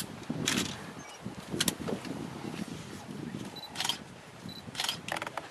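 A handful of camera shutter clicks, some in quick pairs, spread over several seconds, with low murmuring voices underneath.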